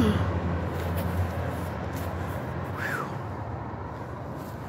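Street traffic noise: a passing vehicle's low engine hum fades away during the first second or so, leaving a steady background of road noise. A brief high chirp sounds about three seconds in.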